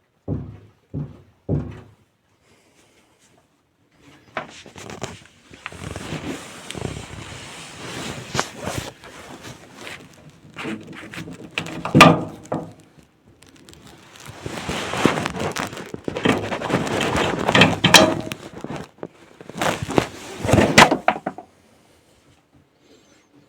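Midea top-loading washing machine drum knocking and clattering. Three short knocks come first, then a long rough clatter full of sharp bangs, loudest about halfway through and near the end, which stops a couple of seconds before the end. This is typical of the drum striking shipping-bolt bushings that were left in place.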